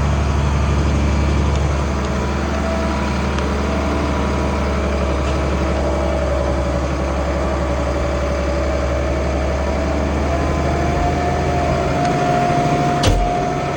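International 1566 tractor's turbocharged six-cylinder diesel running steadily under load while pulling a field cultivator, with a steady whine over the engine that edges up in pitch about ten seconds in. A single sharp click comes near the end.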